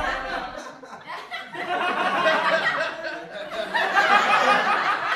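Sitcom studio audience laughing, many voices together, swelling twice.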